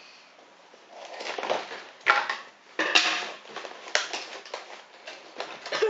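Scissors cutting open a cardboard toy box and its packaging being handled, in short irregular bursts.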